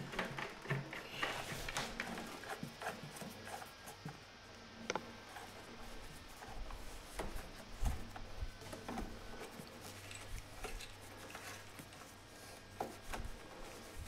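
Handling noise: scattered light clicks, taps and rubbing as gloved hands work around a chrome faucet and stainless steel sink, with a few low thumps around the middle and near the end.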